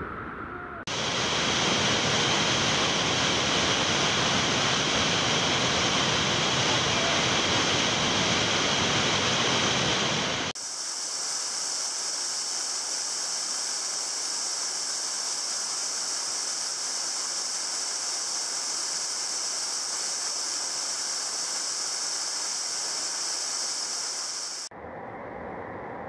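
Waterfall: the steady rush of falling water. The sound shifts abruptly in level and brightness about a second in, again about ten seconds in, and drops quieter near the end.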